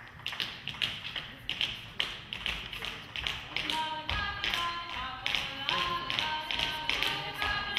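Tap shoes clicking on a stage floor in a quick, uneven rhythm, with music coming in about halfway through.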